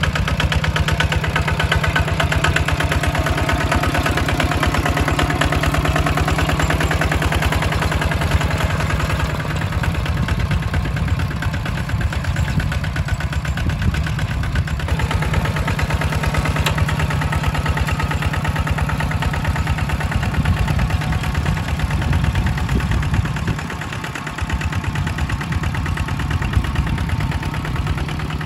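Kubota two-wheel walking tractor's single-cylinder diesel engine running steadily under load while ploughing paddy soil, with a fast, even firing beat. It dips a little in loudness about five seconds before the end.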